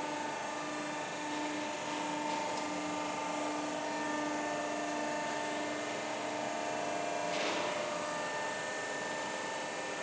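Hydraulic pump motor of a Benson hydraulic guillotine running steadily: a mechanical hum with a whine. About seven and a half seconds in, a brief rustle sounds and the pitch of the whine shifts.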